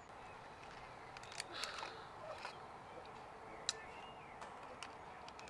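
Quiet outdoor background noise with a handful of short, sharp clicks scattered irregularly through it.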